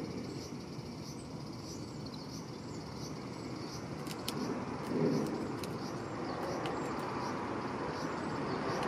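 Steady road-traffic noise, swelling briefly about five seconds in, with faint short high chirps repeating about twice a second. About four seconds in come a few sharp taps, matching the Japanese tit pecking at the peanut feeder.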